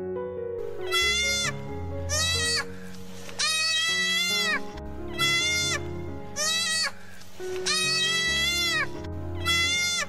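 Sheep bleating over and over: about seven wavering bleats, roughly a second apart, over background music.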